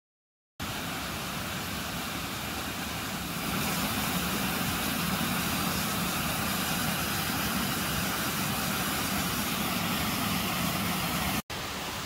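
Steady rush of flowing stream water, starting abruptly about half a second in and briefly cutting out near the end.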